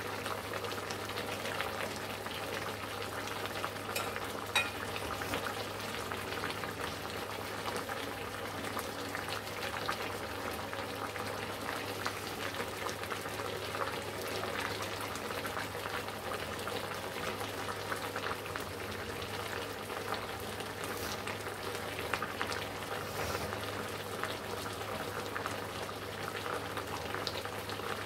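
Ash gourd slices cooking over a low gas flame in turmeric-spiced oil and the water they have released, with a steady crackling simmer-sizzle of small bubbles. A single sharper pop comes about four and a half seconds in.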